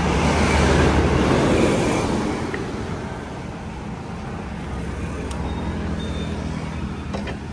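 A motor vehicle engine idling steadily, with road traffic; a louder vehicle sound swells and fades over the first two seconds.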